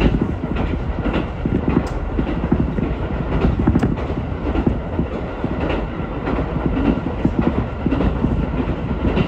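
Ichibata Electric Railway electric train running at speed, heard from inside the carriage: a steady low rumble with the clickety-clack of the wheels over the rail joints.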